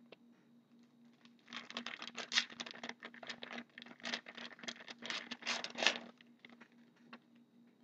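Foil-and-plastic wrapper of a hockey card pack being crinkled and torn open by hand: a dense run of crackling rustles from about a second and a half in until about six seconds in, then fainter handling.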